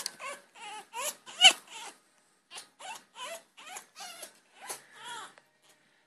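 Parrot giving a rapid run of short chattering calls with wavering pitch, about two to three a second, with a brief break around two seconds in and stopping a little before the end.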